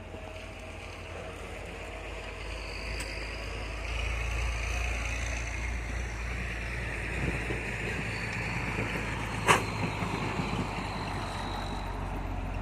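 Excavator engine running steadily, getting louder about four seconds in, with one sharp knock about nine and a half seconds in.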